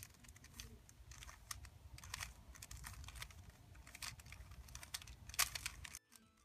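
A 3x3 speed cube being turned quickly by hand: soft, irregular clicks and clacks of its layers snapping round as an algorithm is executed. The sound cuts off abruptly near the end.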